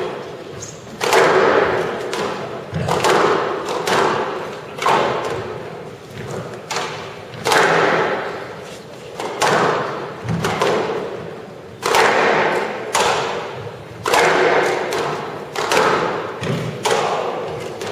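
Squash rally: the ball smacked by the rackets and against the court walls, a sharp hit about every second, each echoing briefly in the hall.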